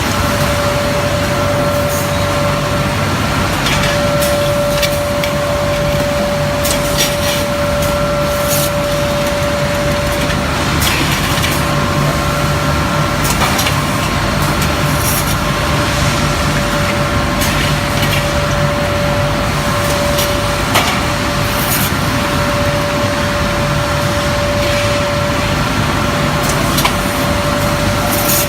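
Glass toughening furnace line running: a steady machine noise with a constant whine and a low hum, and scattered light clicks and clinks throughout.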